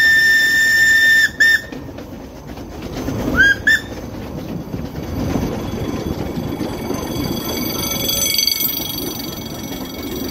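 The whistle of 1916 Decauville steam locomotive No. 1652 sounds for a road crossing ahead. A long blast ends just over a second in, a brief blast follows, and then two short toots come at about three and a half seconds. After that, the narrow-gauge carriages rumble along the track.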